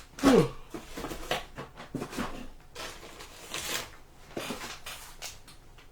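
Handling noises of card boxes and packaging being moved on a table: rustling, taps and clicks, with a short sound falling in pitch just after the start.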